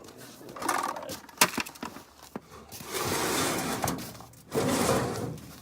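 Knocks, sharp clicks and scraping from microwave parts being handled and pried during a teardown, with one loud click about a second and a half in and two longer scraping rattles in the second half.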